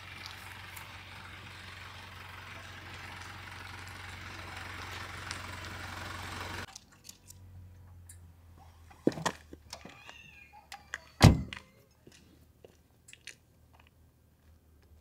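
Toyota HiAce van driving slowly past, a steady engine hum with tyre noise that grows slightly louder, then cuts off about six and a half seconds in. After that it is quieter, with a few knocks and one heavy thump about eleven seconds in.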